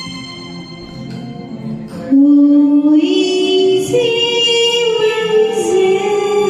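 A woman singing long held notes over a recorded backing track. The voice comes in loud about two seconds in and steps up in pitch twice.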